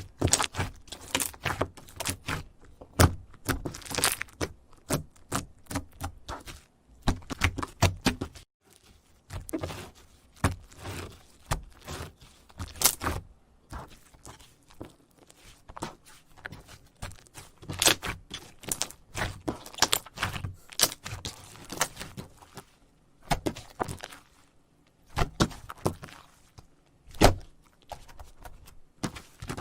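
Slime being squeezed and poked by hand, making irregular sticky pops, clicks and crackles in quick clusters with short pauses between them.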